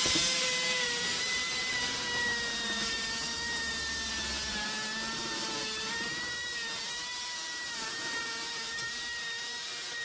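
Handheld electric power tool running at a steady speed, a high motor whine that holds nearly constant pitch with slight wavers, during the dismantling of old window frames.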